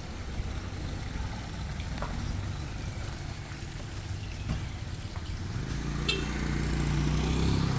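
Small box truck's engine running as it drives slowly out of the yard, the engine note growing louder over the last couple of seconds. A short sharp click comes about six seconds in.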